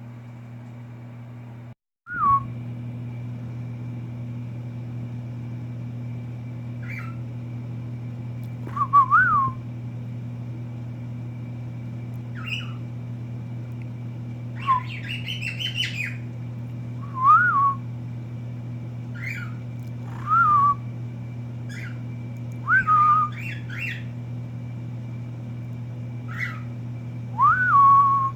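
Pet cockatiel whistling: short rising-and-falling whistled notes every few seconds, mixed with higher chirps and a burst of chatter about halfway through. A steady low hum runs underneath.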